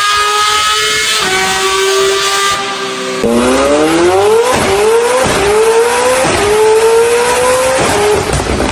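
Supercar engine held at high, steady revs, then about three seconds in it accelerates hard. Its pitch climbs and drops back with each of about four quick upshifts.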